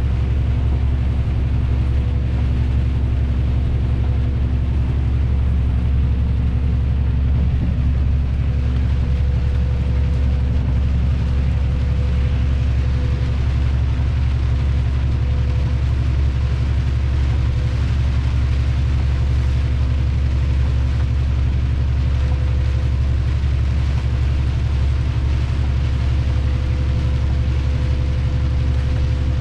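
Lorry's diesel engine droning steadily with road noise, heard inside the cab while cruising on a rain-wet motorway. It is a deep, even rumble with a constant hum over it.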